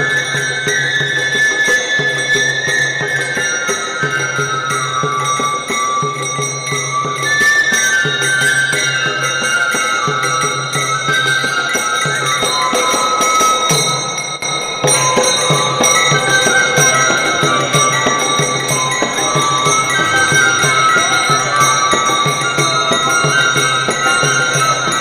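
Live Indian devotional instrumental music: a bamboo flute and harmonium play a melody that steps down in repeated falling runs, over a steady beat of rope-tensioned barrel drums and the continuous jingle of small brass hand cymbals.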